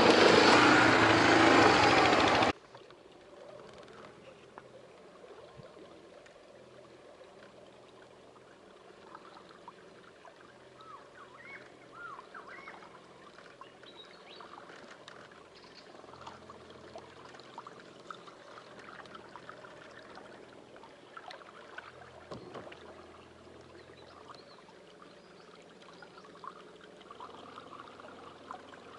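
A loud rushing noise cuts off suddenly about two and a half seconds in. After it come faint water trickles and small drips, with scattered soft plops, as water moves around a kayak in marsh water.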